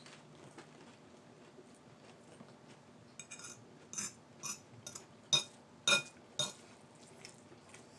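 Metal fork clinking and scraping against a bowl of ramen noodles: a run of sharp, lightly ringing clinks starting about three seconds in, the loudest two near the middle.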